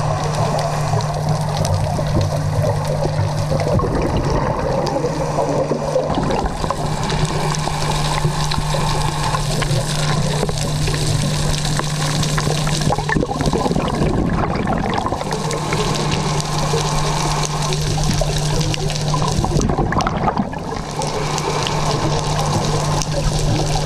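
Underwater sound of a scuba diver's regulator and bubbling exhaled air, with a steady low hum that drops out twice.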